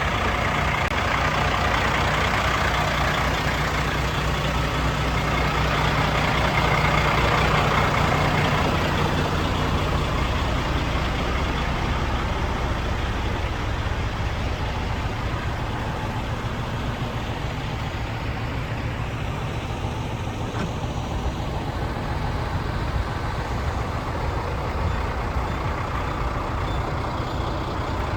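Cat diesel engine of a 2002 International 9100 truck running, a little higher and louder for the first eight or nine seconds, then settling to a steady idle.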